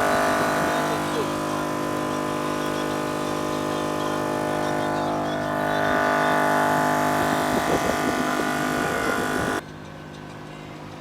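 AllTop portable air compressor running steadily while it pumps up a truck tyre, a steady hum made of several even tones. Near the end it turns suddenly quieter and duller.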